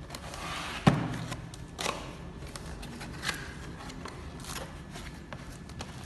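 Handling noise: one loud knock with a short low ring about a second in, followed by scattered lighter clicks and taps, as of objects being picked up and set down.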